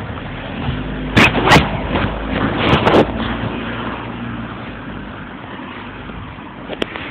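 Handling noise from a phone's microphone knocking and rubbing against clothing, with two sharp knocks about a second in and a few clicks a little later, over a steady low rumble of road traffic.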